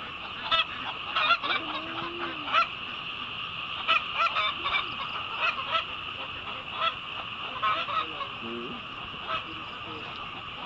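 Birds honking: short calls repeated irregularly, about one a second, over a steady high buzz.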